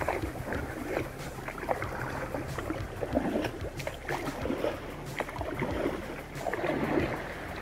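Sea kayak under way, with paddle strokes splashing and water lapping against the hull in irregular splashes.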